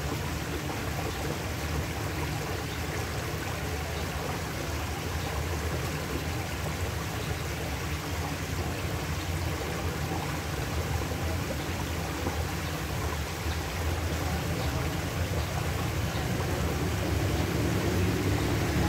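Shallow stream water running steadily through a slatted wooden grate and churning where the fish crowd, growing a little louder in the last few seconds.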